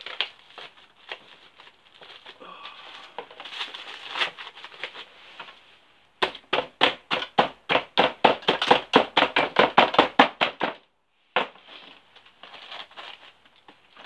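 Crumpled aluminium foil balls crinkling as they are handled and pushed into a steel mould. About six seconds in comes a rapid, even run of knocks, about five a second, for roughly four seconds, as the foil is pressed and tamped down into the mould.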